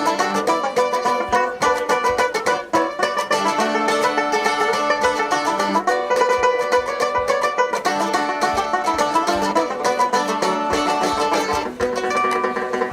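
Live acoustic band playing a fast instrumental passage of rapidly picked plucked-string notes, in a bluegrass-like style.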